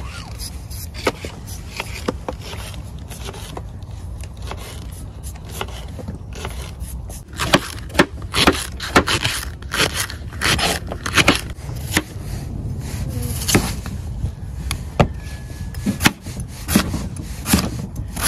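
A large knife chopping raw potato on a cutting board: a run of irregular cuts and knocks of the blade against the board starts about seven seconds in. Under it is a steady low rumble.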